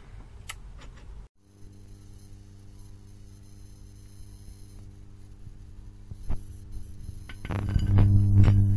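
Mini lathe running, with a steady low electrical hum from its motor, after being switched on. Near the end the sound grows much louder, with a few knocks, as the cutting work at the back of the spindle begins.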